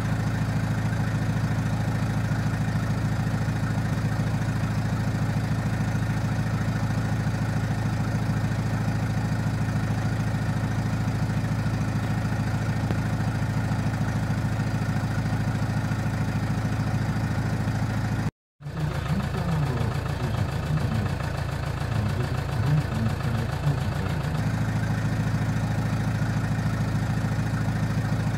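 2001 Hyundai Santa Fe's diesel engine idling steadily, heard at the tailpipe, after its fuel injectors were serviced to cure heavy smoke at start-up. About two-thirds through, the sound cuts out briefly, and for a few seconds an uneven, wavering sound takes over before the steady idle returns.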